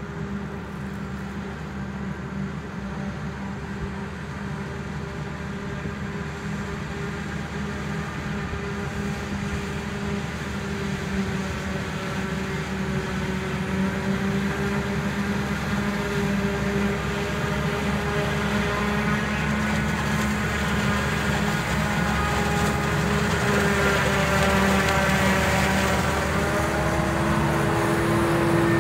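Self-propelled forage harvester chopping maize, with a Massey Ferguson tractor hauling a silage trailer alongside. Their engines and the chopping make a steady drone that grows steadily louder as the machines come closer.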